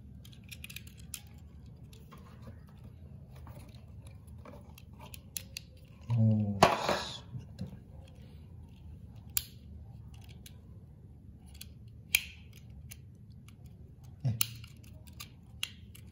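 Scattered small clicks and taps from a die-cast toy van being handled, its hinged plastic roof panel being worked. A short hummed or spoken sound, with the loudest click, comes about six seconds in.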